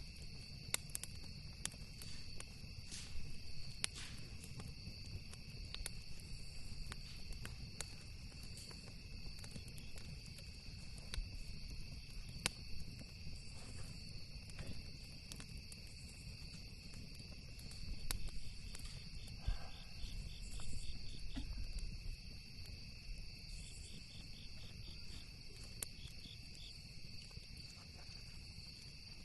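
Insects trilling steadily, with short runs of rapid cricket chirps in the second half. Scattered sharp pops and crackles of a campfire, over a low rumble.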